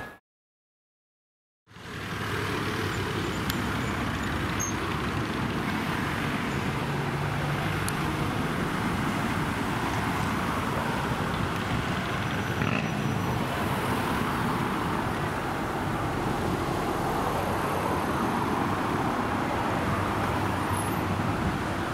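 After about a second and a half of silence, steady road traffic noise: cars running past along a street.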